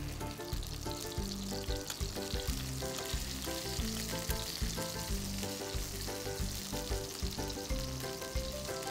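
Oil sizzling steadily as floured fish pieces and ginger slices pan-fry to golden, over soft background music with evenly spaced notes.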